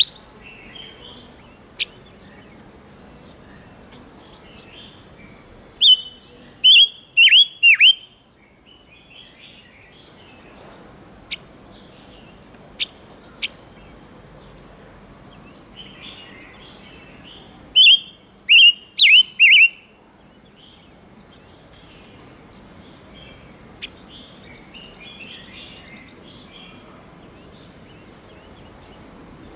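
Ngũ sắc cage bird calling: two loud bursts of four quick, falling, hooked notes, about six seconds in and again near the middle, with single sharp chips and soft chattering between them. These are decoy calls meant to lure wild birds and stir males into song.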